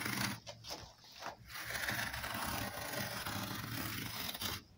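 Thick leather being drawn through a hand-held adjustable lace cutter, the blade slicing off a 3.5 mm lace with a steady scraping. It comes in short breaks for the first second or so, then runs evenly and stops suddenly near the end.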